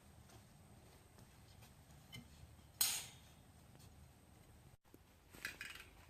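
Greenhouse frame pieces being handled and fitted together: a sharp knock about three seconds in, a lighter click before it and a few light clatters near the end, over a quiet background.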